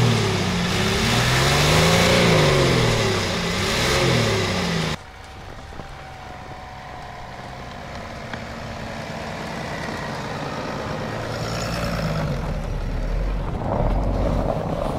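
A four-wheel-drive vehicle's engine revving hard, its pitch swinging up and down several times. About five seconds in, it cuts abruptly to a quieter engine running steadily and slowly getting louder.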